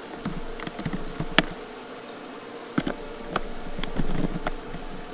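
Plastic push clips being pried out of a pickup's front bumper cover: a series of sharp clicks and pops with handling noise, the loudest about a second and a half in, over a steady buzzing hum.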